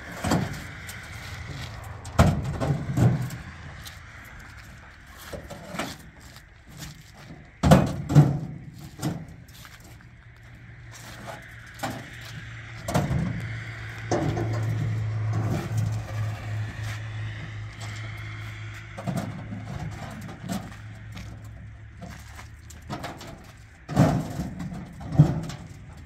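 Hollow concrete blocks knocking and clunking as they are lifted off a pickup's metal bed and set down on concrete, in scattered single and double knocks. A steady low hum runs for several seconds midway.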